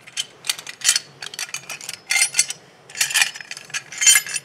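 Steel satellite-dish mounting bracket, U-bolts and nuts clinking and rattling as they are handled, in short metallic bursts roughly once a second.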